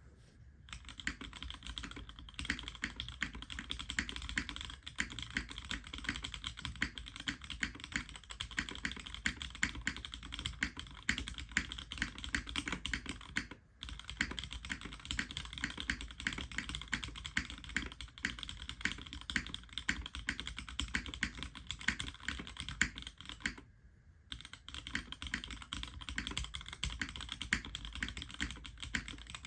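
Fast, continuous typing on a 65% mechanical keyboard with Cherry MX Retooled Black linear switches in an aluminium top-mount plate and DCS-profile keycaps: a steady stream of key clacks with brief pauses about 14 and 24 seconds in.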